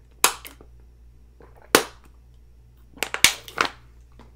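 Loud, close gulps of water swallowed from a plastic water bottle: two separate gulps, then a quick cluster of sharp sounds about three seconds in.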